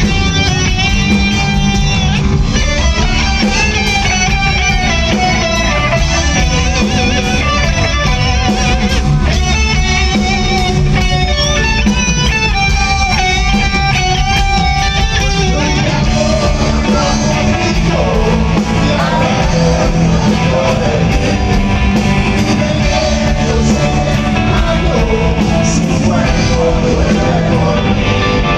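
Live rock band playing an instrumental passage: a lead guitar melody over bass and drums, loud and steady, picked up by a phone's microphone.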